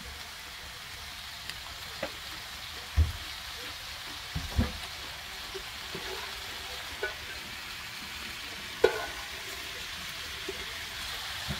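Shredded raw potatoes sizzling steadily in hot cooking oil in a frying pan, with a few sharp knocks of utensils against the pan.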